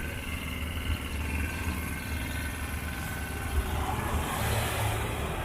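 Steady low engine rumble of a motor vehicle running.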